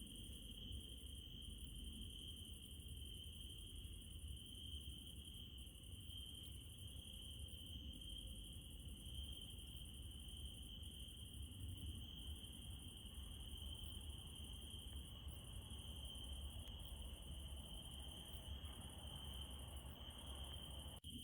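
Crickets trilling steadily and without a break, faint, with a low steady rumble underneath.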